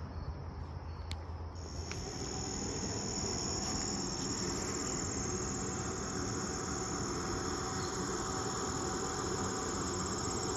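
Insects in woodland trilling in a steady, high-pitched chorus that starts about a second and a half in and holds steady, over low rustling noise.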